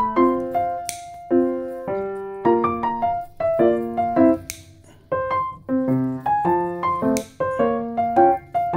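Background music: a light piano tune of quick, bright notes.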